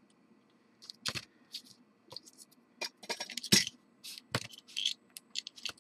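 Irregular light taps and clicks with brief rustling: a rubber stamp being inked on an embossing pad and pressed onto watercolor paper.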